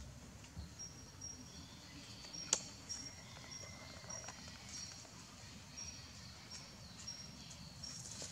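Faint forest ambience: a short high-pitched chirp repeating about every half second over a low rumbling background, with one sharp click about two and a half seconds in.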